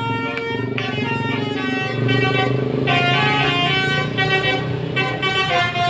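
Basuri telolet horn on a bus, a multi-tone musical air horn, playing a tune as a run of held notes that change pitch every half-second or so, with several tones sounding together. Beneath it runs a steady low hum.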